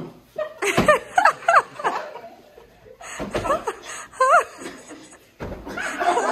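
People laughing, the laughter high-pitched and swooping up and down in pitch.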